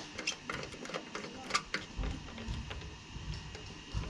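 Allen key turning a bolt into a motorcycle tank ring: a string of small metal clicks and scrapes, with a few dull low knocks in the second half.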